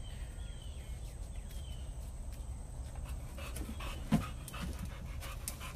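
A dog panting in short, quick breaths, with a single sharp thump about four seconds in.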